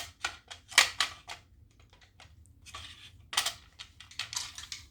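Quick clicks and clacks of a magazine being pushed and wiggled against the magazine well of an airsoft Thompson submachine gun, in several short clusters, without seating: a protruding screw is blocking the magazine.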